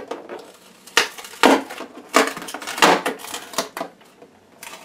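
Hard plastic knocking and clicking as the Ninebot One's side pad and plastic shell are worked by hand, about five louder knocks over a few seconds.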